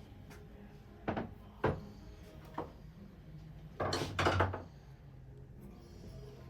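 Metal tools and engine parts being handled during an engine teardown: three short clanks, then a louder rattling clatter of about a second a little past the middle.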